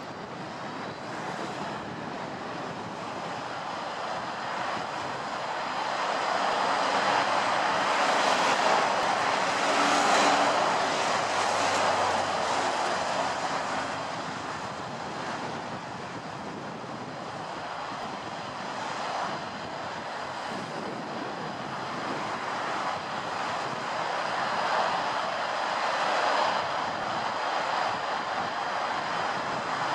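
Airbus A320-214 airliner's CFM56 turbofan engines on final approach: a continuous rushing drone with a thin high whine, swelling and easing in level and louder near the end as the jet comes closer.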